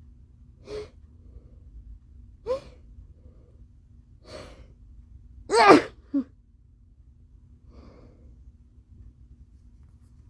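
A person's allergy sneeze after a breathy build-up: a few short, catching gasps over the first few seconds, then one loud sneeze with a falling voiced cry about halfway through, a brief second burst right after, and a quiet breath near the end.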